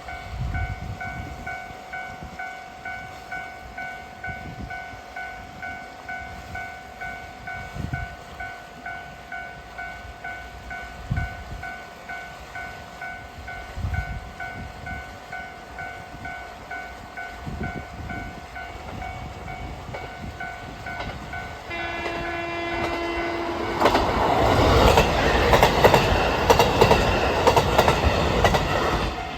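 Japanese level-crossing warning bell ringing in a steady repeating ding, about once a second. About 22 seconds in, a train horn sounds a steady tone. Then a diesel train passes close over the crossing, the loudest part, its wheels clacking over the rail joints.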